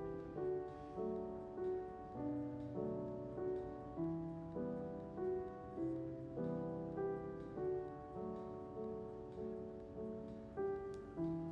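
Quiet background music: a slow, gentle piano melody, its notes struck at an even pace a little under two a second, each fading before the next.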